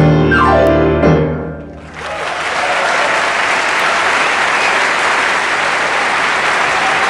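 Solo jazz piano playing its closing notes: a short upward run and a final chord that dies away. About two seconds in, the audience starts applauding, and the applause continues steadily.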